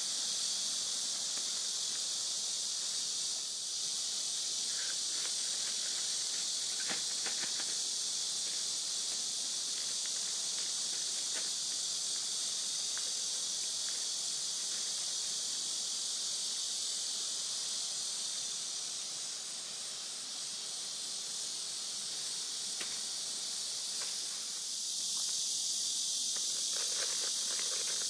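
Steady high-pitched chorus of insects throughout. Over it come scattered light crinkles and clicks of a plastic zip bag being handled, then a denser run of crackling near the end as the dry instant-noodle block inside the bag is crushed with a stick.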